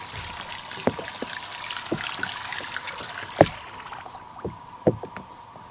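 Water sloshing and trickling around a small fishing boat, with about six sharp knocks scattered through it, the loudest about three and a half seconds in.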